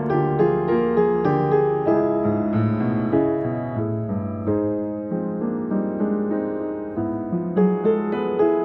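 Jazz piano playing chords and a melody line, each note struck cleanly and left to ring into the next.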